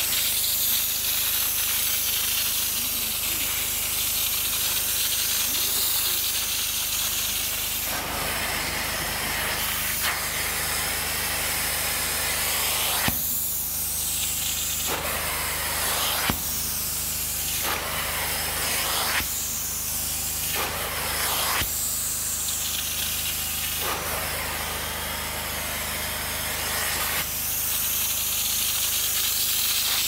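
Steam-cleaning (hot water extraction) machine running steadily, its upholstery hand tool hissing with spray and suction as it is drawn over a fabric cushion in strokes. The hiss swells and drops every second or two, with two sharp clicks about halfway through.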